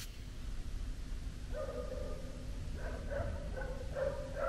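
An animal barking repeatedly in the dark: a string of short pitched barks that begin about a second and a half in and come quicker towards the end.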